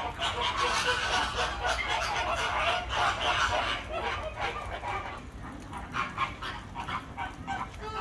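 A flock of flamingos calling, many short honks overlapping, busiest in the first half and thinning out after about five seconds.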